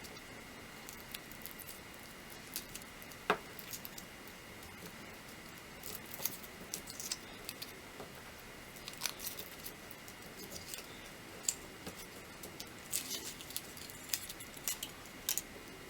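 Foil wrapper being peeled off a chocolate surprise egg: faint scattered crinkles and ticks, growing busier near the end.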